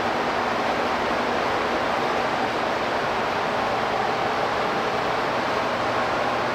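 Observatory dome turning on its drive: a steady, even mechanical noise with a faint low hum.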